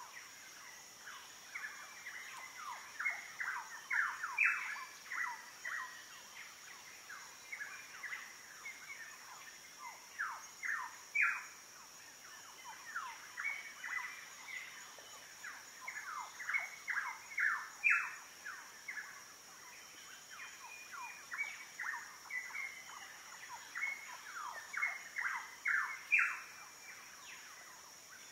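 Birds chirping continually, many short falling calls overlapping, over a steady high-pitched drone of tropical insects.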